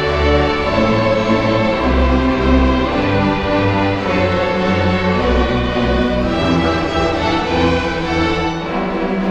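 A school string orchestra playing live, violins over cellos and basses, with sustained notes and a moving bass line.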